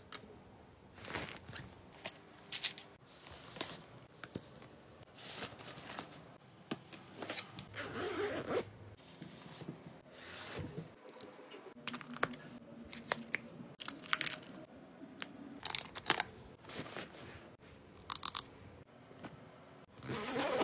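Close handling noise: irregular rustling and scraping of fabric and plastic, broken by sharp clicks, as a plastic water bottle, a padded laptop sleeve and a canvas tote bag are handled.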